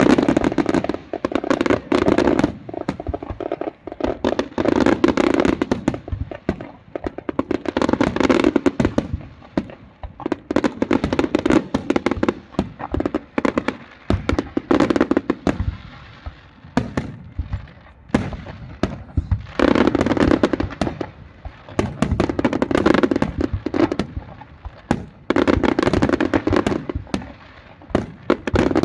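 Fireworks display: rapid, overlapping bangs and crackling bursts that come in loud waves every few seconds with brief, quieter lulls between.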